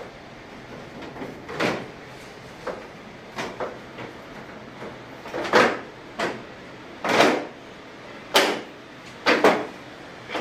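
Plastic air filters and the hinged front panel of a split AC indoor unit being handled and slotted into place: a series of irregular plastic clicks, knocks and short scrapes, the loudest in the second half.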